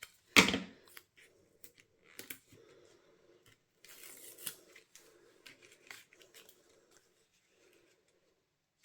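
Double-sided foam tape being cut and handled for the back of a die-cut paper piece: faint light snips, rustling and small clicks, scattered over the first several seconds and then stopping.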